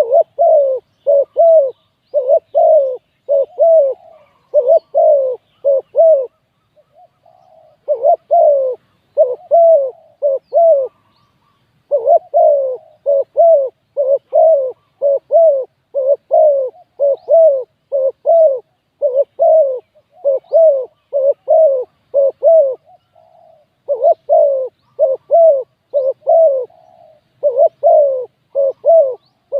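Spotted dove cooing over and over, low arched coos strung into runs of several notes with brief pauses between runs.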